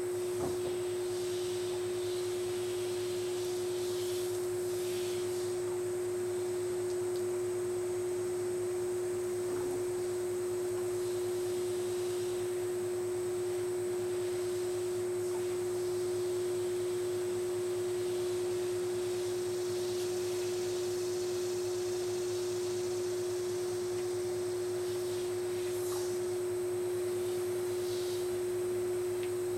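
A steady, unchanging hum on one tone, with faint short hisses now and then and a single light click near the end.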